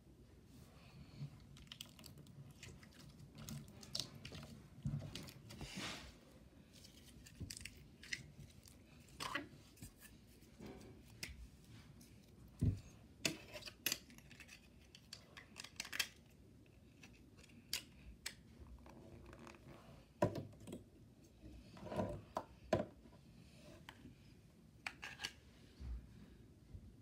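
Slime being poked and pulled on a wooden surface, with small plastic slime tubs handled near the end, making faint, irregular sharp clicks and small pops, sometimes several in quick succession.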